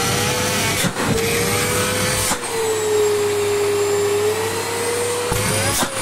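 Samsung Easy 1600 W canister vacuum cleaner running steadily, its motor whine sagging slightly in pitch about halfway through and then climbing back.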